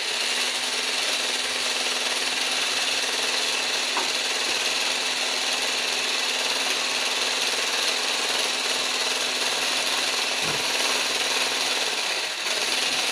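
Corded electric stick blender with a wire whisk attachment running steadily in a glass bowl, whisking egg, vinegar and salt, the first stage of making mayonnaise before the oil goes in. The motor whine carries a steady hum, with a brief dip near the end.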